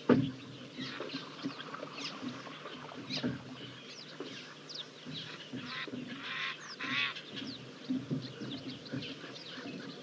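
Birds calling around a waterhole: a busy mix of short whistled chirps and lower honking calls, with a loud honk right at the start.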